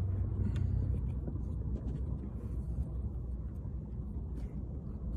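Steady low rumble inside a car, with a few faint small clicks and rustles of hands and a screwdriver working on the console trim.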